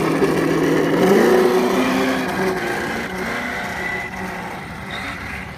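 Traxxas Slash 4x4 radio-control truck driving off, its On Board Audio speaker playing a simulated engine note that revs up about a second in and then fades as the truck pulls away.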